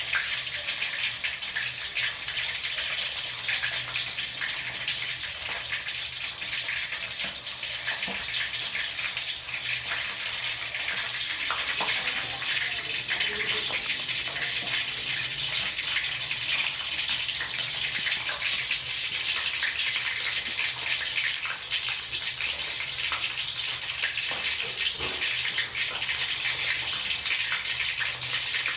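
Hot oil sizzling around a whole fish and garlic cloves shallow-frying in a pan: a steady hiss thick with fine crackles.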